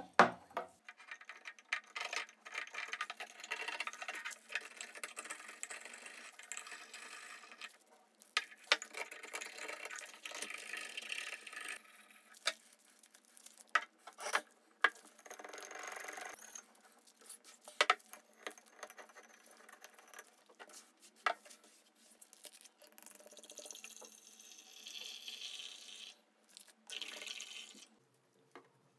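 Small glass bottles handled on a wooden tabletop: an aluminium screw cap twisted open with a loud sharp click at the start, then rustling and scraping with scattered sharp knocks of glass and metal caps set down.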